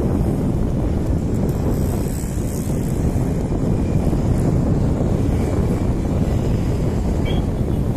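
Wind buffeting the microphone: a steady, loud low rumble with no clear events in it.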